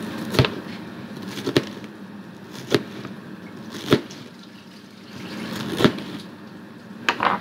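Knife cutting through rolled-up collard green leaves and knocking on a cutting board, one sharp cut about every second, with a quick double cut near the end.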